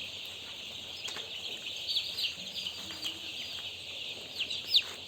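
Chickens clucking and calling, with scattered short high chirps, over a steady high hiss.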